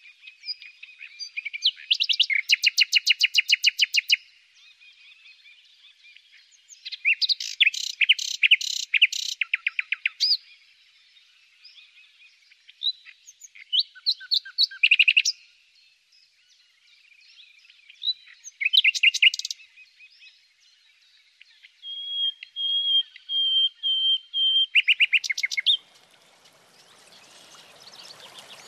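A songbird singing in repeated bursts of rapid, high chirping notes, with a pause of a few seconds between bursts. A faint rushing noise of running water comes in near the end.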